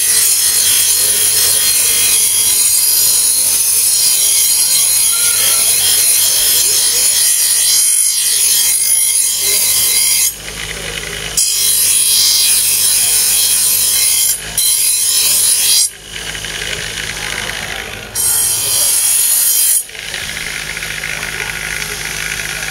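Steel knife blade being ground against a spinning abrasive wheel on a bench grinder: a loud, steady high hiss of steel on the wheel over the motor's hum. The blade comes off the wheel briefly a few times, leaving only the motor running, and the grinding stops near the end.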